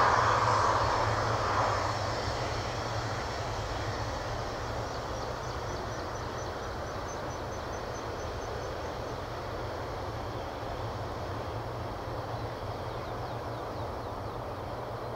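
Boeing 757-223's Rolls-Royce RB211 turbofans as the airliner rolls out after landing: loud engine noise dies away over the first two seconds, leaving a steady, quieter jet hum as the aircraft slows down the runway.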